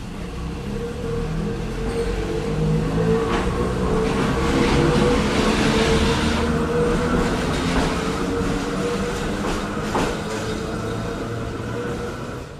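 Ueda Kōtsū Moha 5251 'round-window' electric railcar pulling away from the station. A steady whine and rolling noise grow louder to a peak midway, then ease off as it runs away. Two sharp clicks come about three seconds in and again near ten seconds.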